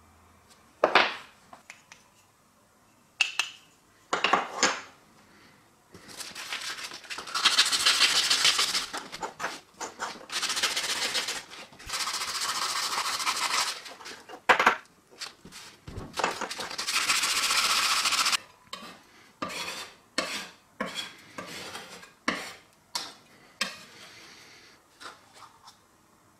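Knife parts handled on a wooden workbench: sharp clicks and knocks of metal and wood pieces being picked up and set down, with four long stretches of rubbing starting about six, ten, twelve and sixteen seconds in, then a run of small knocks near the end.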